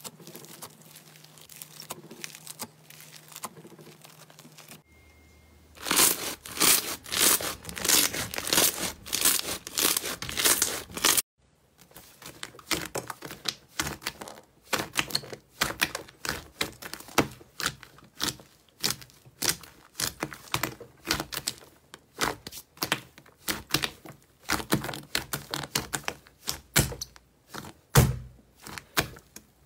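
Hands working slime: quiet crackling of foam-bead slime at first, a stretch of loud dense crackling for about six seconds that cuts off, then thick grey slime pressed and kneaded in a glass bowl, giving many sharp clicks and pops, several a second, with a low thump near the end.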